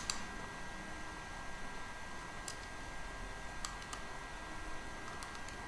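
A few faint, sparse clicks of a dental implant torque ratchet as the implant is turned back slightly, relieving pressure on the bone, over a faint steady high tone.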